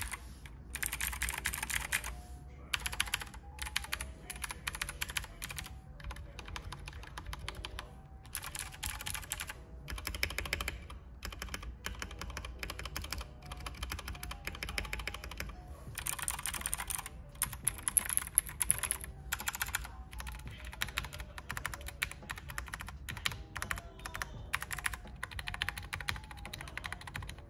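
Keychron K2 mechanical keyboard with clicky Gateron Blue switches being typed on in quick bursts of clicks with short pauses between them. Its sound is damped by foam under the PCB and by tape on the bottom of the PCB.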